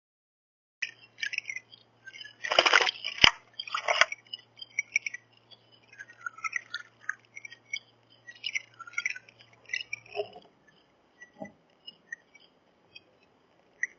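Small songbirds chirping in short high calls, with two loud rustles a little over two seconds and about four seconds in and a sharp click between them, then a couple of soft knocks later on.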